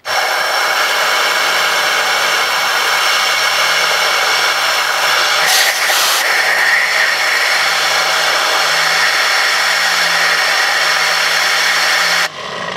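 Compressed air at 50 PSI blasting from an air blow gun through a 3D-printed air-powered turbine coupled to a 120 mm propeller: a loud rushing hiss with a steady whine of the spinning rotor. It cuts off abruptly about twelve seconds in. The builder finds it does not spin nearly as fast as his smaller turbine, and puts this down to its size and less-lubricated bearings.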